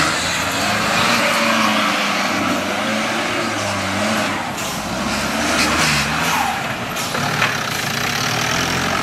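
Mahindra jeep engine revving up and down under load as the jeep climbs a steep dirt slope, over a dense hiss of tyres and dirt, with a sharp knock near the end.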